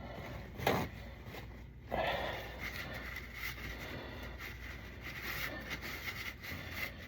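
A rag wiping and rubbing around the oil pan's drain hole, a soft scuffing hiss with a couple of brief louder rubs or knocks in the first two seconds.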